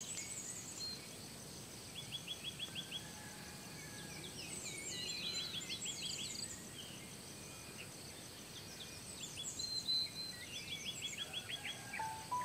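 Several songbirds singing and calling together. Short runs of quick, evenly spaced chirps come three times among the other calls, over a thin, steady high-pitched tone.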